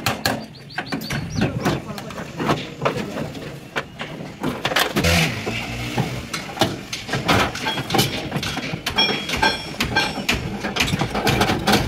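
Repeated hammer blows on the sheet steel of a Hino truck cab: a string of sharp metallic knocks, a few of them ringing briefly, with people talking in the background.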